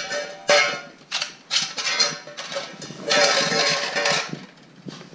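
Siberian husky puppy licking and nosing a nearly empty stainless steel food bowl, its tongue and muzzle scraping and knocking the metal in irregular bursts. The longest burst comes about three seconds in, with the bowl ringing faintly.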